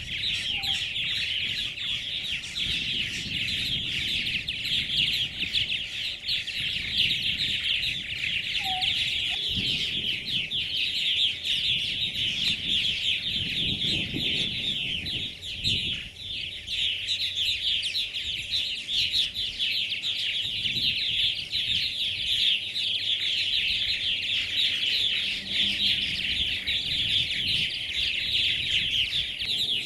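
A purple martin colony calling: a dense, continuous chatter of many overlapping short chirps. It includes the young birds' calls to their parents as the families fly in.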